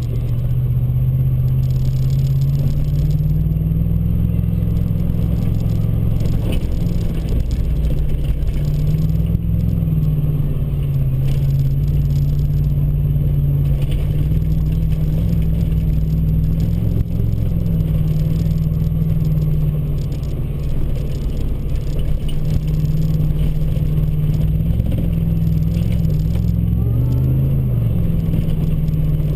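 Ford Raptor pickup's engine running as it drives along a dirt road, heard from inside the cab; its pitch rises and falls gently with the throttle, with a brief rise and dip near the end.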